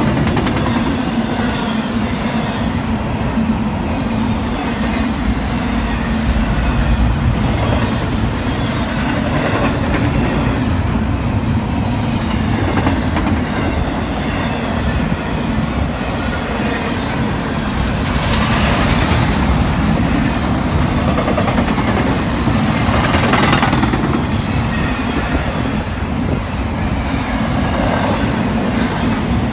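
Intermodal freight train of double-stacked containers and trailers passing close by at speed: a loud, steady rumble of wheels on the rails, with two brief louder, hissier rushes about two-thirds of the way through.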